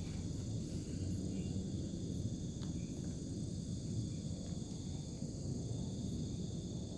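A chorus of crickets and other night insects trilling steadily at several high pitches, over a low rumbling noise.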